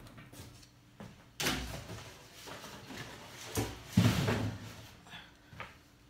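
Handling noise of laptop parts on a workbench: a few knocks and scrapes, the loudest about four seconds in.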